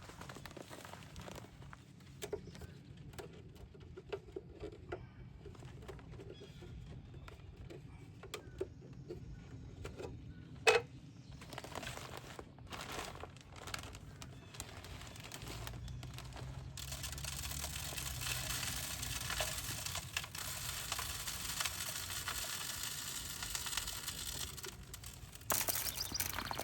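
Packaging being cleared up by hand: scattered light clicks and knocks with one sharp knock about ten seconds in, then a steady crinkling rustle of paper and plastic that grows louder near the end.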